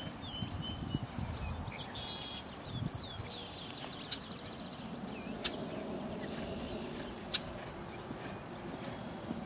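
Open-field ambience: small birds chirping during the first few seconds over a steady low rumble, with a few sharp clicks later on. A horse trots on grass, its hoofbeats soft.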